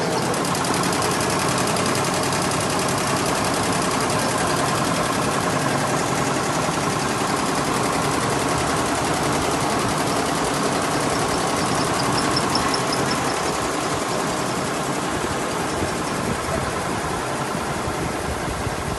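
Factory production machinery running steadily, with a fast, even rattle.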